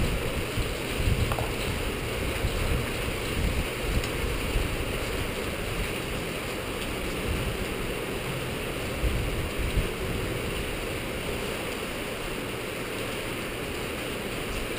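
Steady hiss of rain with wind buffeting the microphone in uneven low rumbles.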